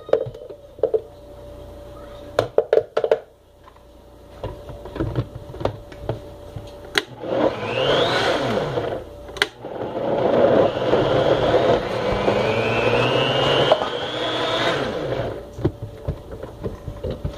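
Vitamix blender blending a thick smoothie of frozen fruit, starting a few seconds in after some clicks. The whine of the motor rises twice as the speed is turned up while the tamper presses the mix down through the lid, then cuts off shortly before the end.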